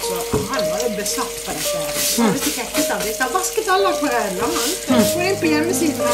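Water spraying from a sink hose with a brush head onto a wet painting on paper, a steady hissing spatter as it is scrubbed over the surface.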